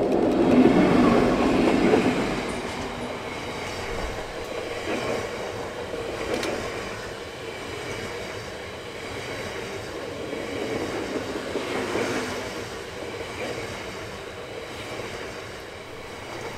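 Class 60 diesel-electric locomotive passing close at speed, loudest for the first two seconds as the engine goes by, followed by a long rake of loaded freight wagons rolling past with a steady rumble and regular clacks of wheels over the rails.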